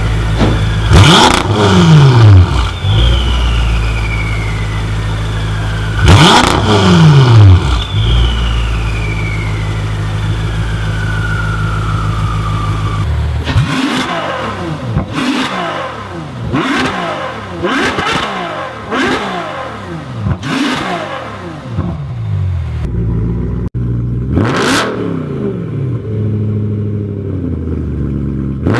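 A high-performance car engine with a loud aftermarket exhaust, revved while parked. It idles with a steady drone and is revved hard twice, the pitch falling away after each. About halfway it changes to a quick series of short throttle blips roughly every second, ending with one bigger rev.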